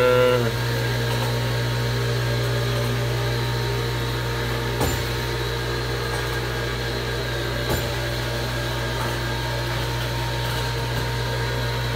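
Electric motor of a homemade freight lift running as the lift car climbs, a steady low hum with two light clicks about five and eight seconds in.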